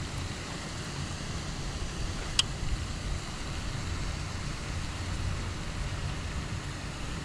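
Steady outdoor hiss over a low rumble, with one sharp click about two and a half seconds in.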